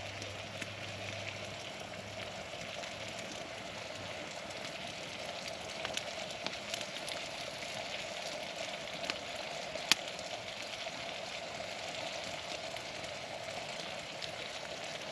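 Food sizzling steadily in a Boy Scout mess-kit pan over a campfire, with scattered sharp crackles from the burning wood and one louder pop about ten seconds in.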